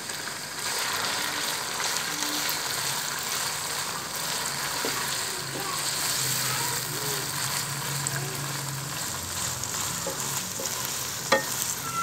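Beef and bitter gourd sizzling as they fry in oil in a karahi with freshly added ginger paste, stirred now and then. The sizzle grows louder about half a second in, and a single sharp knock comes near the end.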